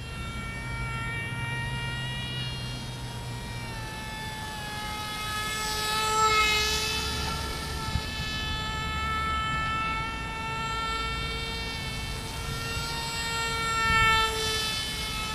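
Electric motor and propeller of a 600 mm foam RC airplane buzzing in flight, its pitch sliding up and down. It grows louder twice as the plane passes close, about six seconds in and again near the end.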